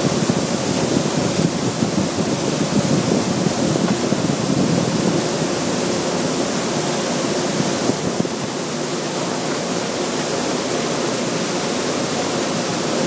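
A steady, loud rushing roar of wind-driven spray sweeping across a drilling rig floor.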